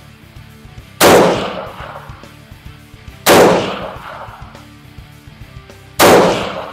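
Three shots from a Ruger SFAR semi-automatic rifle in .308 Winchester, fired with its two-port muzzle brake, a few seconds apart; each sharp crack is followed by an echo that fades over about a second.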